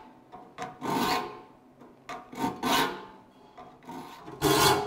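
Saw file stroking across the steel teeth of a crosscut hand saw clamped in a saw vise: three rasping file strokes, about one every second and a half, the loudest near the end.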